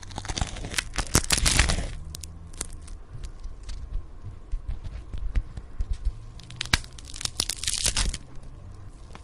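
Bone-cracking sound effect: a dense run of crackling and crunching for about two seconds, then scattered single cracks, then a second dense run of crackling about seven seconds in, over a low hum.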